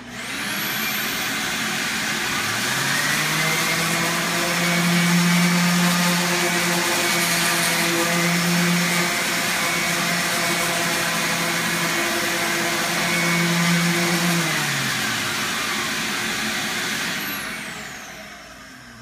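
Shop vacuum switched on with a rising whine and a steady rush. About two seconds later a vacuum-hosed electric sanding unit spins up with a hum and sands spackled wall. The sander spins down about three-quarters of the way through, and the vacuum then winds down with a falling whine near the end.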